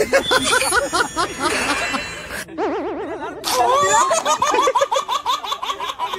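Rapid, high-pitched laughter, a quick run of short 'ha' sounds, broken a little after halfway by a warbling trill of about a second before the laughing resumes.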